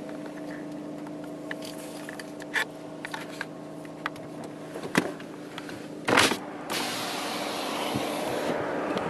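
Car driving at road speed, heard from inside the cabin: a steady engine hum with scattered small clicks and taps. About six seconds in there is a short loud rush, and after it louder road and wind noise comes through an open side window.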